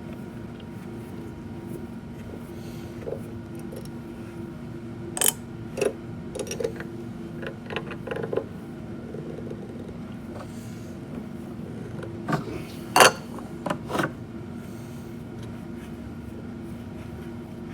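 Scattered sharp metal clinks and taps of a hex wrench and small screws being worked out of a DeWalt DW735 planer's cutterhead, the loudest clink about 13 seconds in, over a steady background hum.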